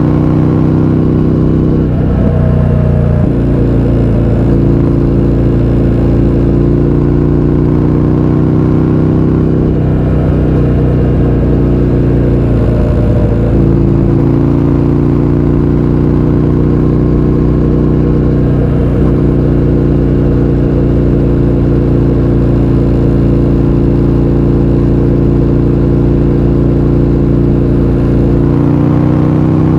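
Indian FTR 1200's V-twin running under way through an Akrapovič exhaust with the baffles removed. Its note shifts briefly a few seconds in and again around the middle, and rises near the end as the revs climb.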